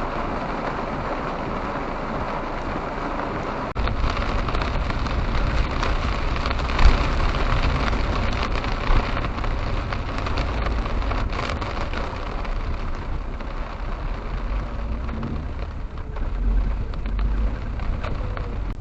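Steady rushing road noise of a moving car, its low rumble rising sharply about four seconds in as the car speeds up or moves onto rougher road.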